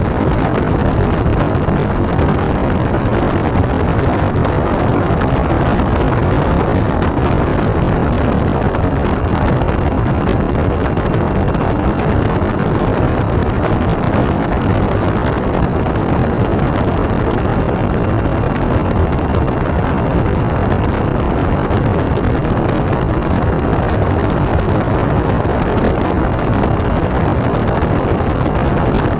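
Steady rush of airflow and propeller noise picked up by a camera riding on an E-flite UMX Air Tractor RC model plane in flight, with a thin, steady high whine over it.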